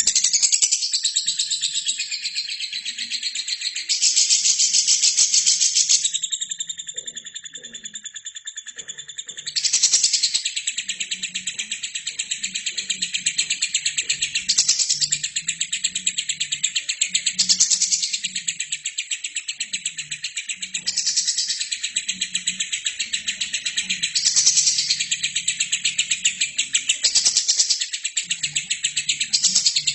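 Albino lovebird singing a long, rapid, chattering trill without pause, swelling louder every few seconds.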